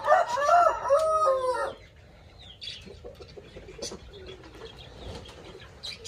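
Rooster crowing: a long, wavering crow that ends about two seconds in, followed by much quieter clucking.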